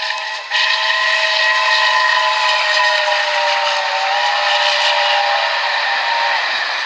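Whistle of the BR Standard Class 7 'Britannia' steam locomotive 70022 Tornado passing at speed: a short toot, then one long blast of several steady pitches lasting about six seconds, over the steady rush of the train. The whistle cuts off shortly before the end, leaving the noise of the passing coaches.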